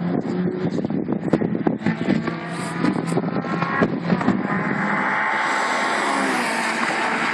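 Race car engines running hard around the circuit, with wind buffeting the microphone through the first half; from about halfway the engine sound turns steady and even.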